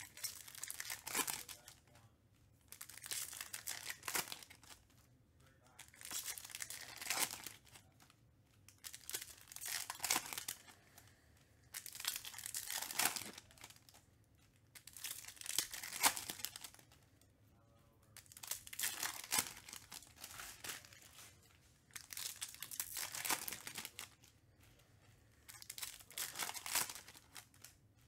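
Foil trading-card pack wrappers being torn open one after another: about ten short bursts of wrapper noise, every two to three seconds.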